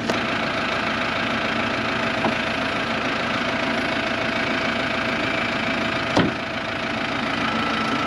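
Farm diesel engine idling steadily, with a faint click about two seconds in and a single sharp knock about six seconds in.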